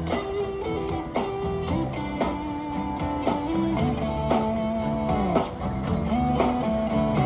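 Instrumental break of a pop ballad's backing track: guitar over held chords and a steady beat, with no voice.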